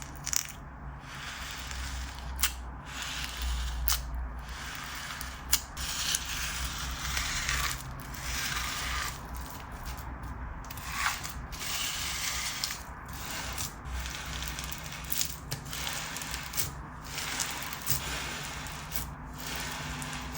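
Seed bead slime being squeezed and pressed by hand: a dense, crunchy clicking of tightly packed seed beads, with a few sharper pops.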